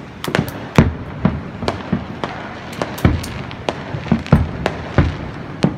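Aerial fireworks shells bursting in quick, irregular succession, about three sharp bangs a second, each with a low boom.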